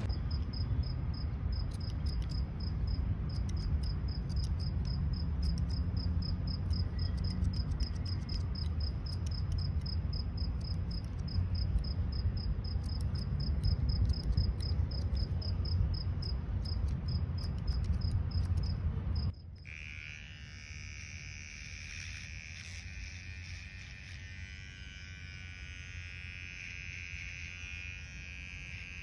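Cricket chirping steadily, a high pulse about three times a second, over scattered sharp snips of hair-cutting scissors and a low outdoor rumble. About two-thirds through the sound changes abruptly to the steady high-pitched buzz of a cordless electric hair trimmer.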